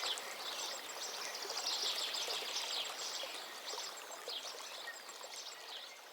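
Forest ambience: many small birds chirping and trilling at once over a steady hiss, with a faint, evenly repeated high ticking, slowly fading toward the end.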